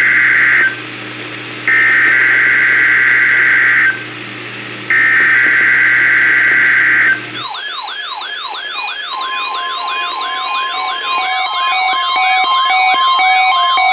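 NOAA Weather Radio SAME header for a Required Weekly Test: harsh digital data tones in bursts of about two seconds, the tail of one and then two more, a second apart. About seven seconds in, an electronic siren-like warble starts, about three falling sweeps a second, with more electronic tones layering in over it.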